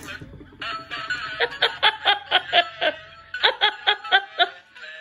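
A person laughing in two runs of quick repeated bursts, about five a second, over background music.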